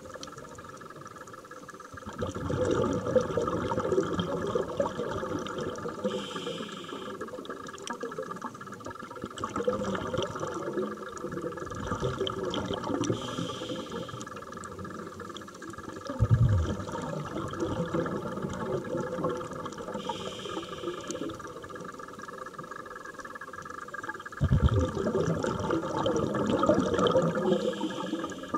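Scuba diver breathing through a regulator, heard underwater: a short hiss on each inhale about every seven seconds, each followed a few seconds later by a burbling gush of exhaled bubbles.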